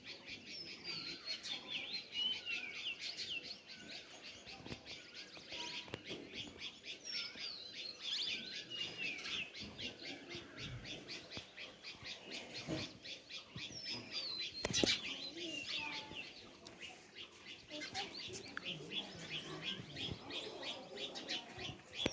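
A flock of sparrows chirping continuously, many short overlapping chirps and falling notes. A single sharp tap about two-thirds of the way through.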